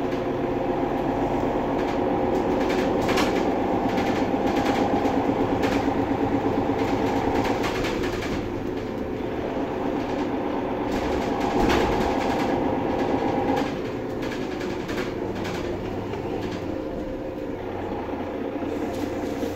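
Interior noise of a Setra S 415 NF Euro 5 diesel city bus under way: engine and drivetrain running with road noise and rattles of the body and fittings. The noise is louder in the first half and drops somewhat about two-thirds of the way through.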